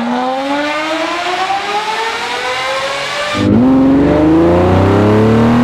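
Car engine accelerating through a tunnel, its pitch climbing steadily. About three and a half seconds in it cuts to a louder, deeper recording from inside the cabin of a W140 Mercedes S600 with equal-length headers, its V12 pulling hard with the pitch rising again. The owner likens that sound to an open-header V6 that seems to be 'trying' to make its noise, the sign of low compression.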